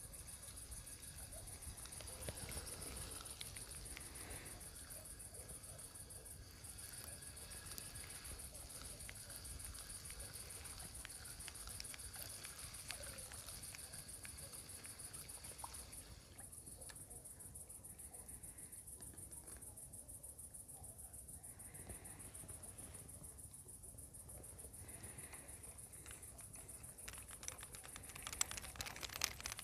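Crickets and other night insects chirping faintly and steadily, a high, fast pulsing trill with a lower chirping that stops about halfway through. Near the end come a few sharp clicks.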